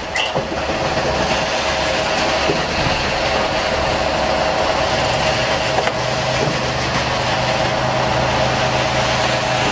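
Heavy diesel engines of a concrete pump truck and concrete mixer trucks running steadily. A lower steady hum comes in about six seconds in.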